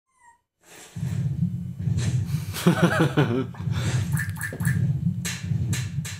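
Cartoon kaiju-fight sound effects: a loud, continuous low rumble from about a second in, a short wavering vocal cry around the middle, and a run of sharp hits in the second half.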